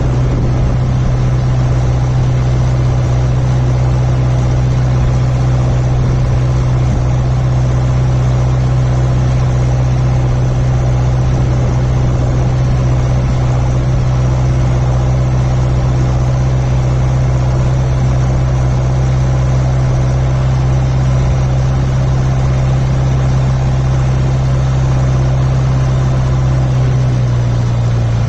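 John Deere 6400 tractor's four-cylinder turbo diesel running steadily at a constant engine speed. Its pitch drops slightly near the end.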